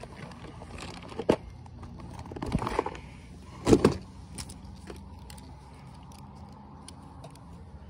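Knocks and clatters against a plastic kayak as a small fish is landed and handled, the loudest about four seconds in, followed by faint small clicks.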